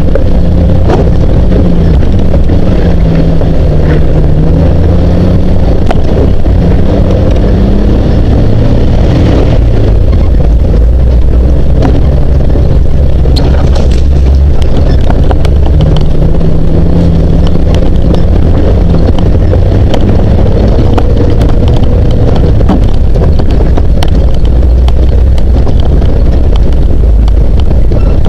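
Jeep CJ-7's engine running at low speed as it crawls over a rocky dirt trail, its note rising and falling a little, with scattered knocks and rattles and some wind on the microphone.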